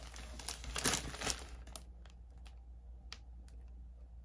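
Thin plastic packaging crinkling as a plastic mailer bag and plastic-wrapped packs of leggings are handled. The crinkling is dense for about the first two seconds, then thins to a few light clicks and rustles.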